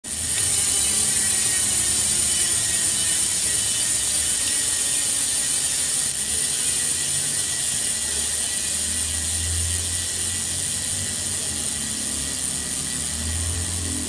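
Bicycle hub's freehub ratchet buzzing as the wheel spins in a truing stand: a fast, steady clicking that continues without a break.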